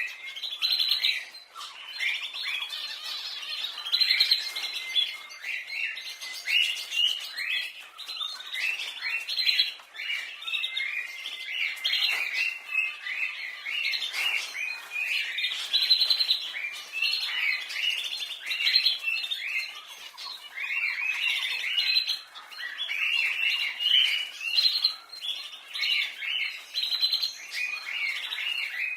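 Domestic canaries singing and chirping together in a continuous chorus of rapid trills and short rising and falling notes.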